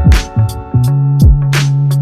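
Background music with a heavy electronic beat: deep falling kick-drum thumps about every half second and two sharp snare hits over a held bass line and sustained chords.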